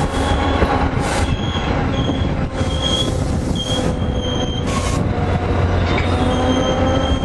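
New Jersey Transit commuter train coaches rolling past close by: a continuous rumble of wheels on rail, with short high-pitched wheel squeals recurring several times.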